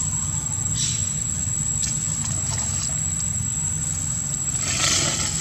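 A steady low hum, like an engine idling, under a constant thin high-pitched whine, with a few short rustling noises; the longest and loudest comes near the end.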